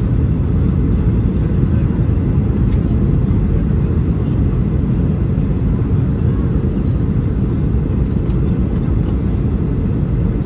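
Steady low rumble inside the cabin of a Boeing 737-800 on approach, from its CFM56-7B engines and the airflow over the fuselage, with a few faint ticks.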